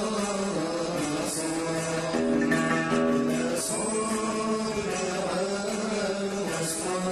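Traditional Yemeni song: a plucked string instrument plays a steady melody, with a male voice singing.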